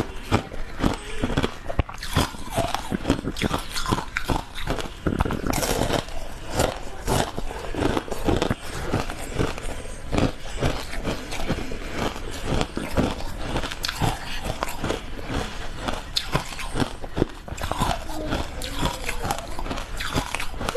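Close-miked biting and chewing of frozen matcha ice: rapid, irregular crunching and cracking with many sharp crunches packed closely together.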